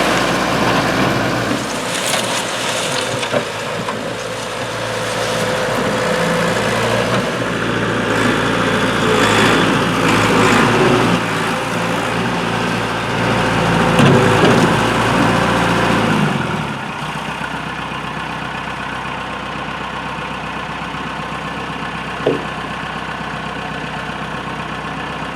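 A vehicle engine running, working harder with shifting pitch for most of the time, then settling to a steady idle about two-thirds of the way through. A single short knock near the end.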